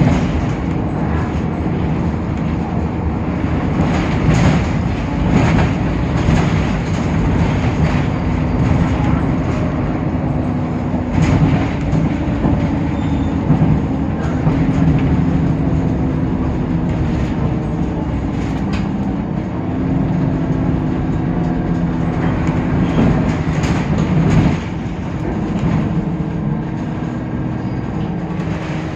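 Temsa Avenue LF city bus's DAF PR 228 diesel engine and ZF automatic gearbox running under way, a steady drone whose pitch steps up and down several times, with knocks and rattles from the bus body throughout.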